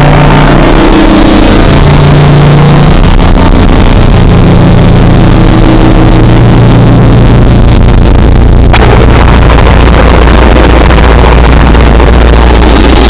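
Harsh noise music: a dense wall of distorted noise at full volume over a deep steady drone. A high whistling band slides down at the start and again near the end, and it drops out after a sharp crack about nine seconds in.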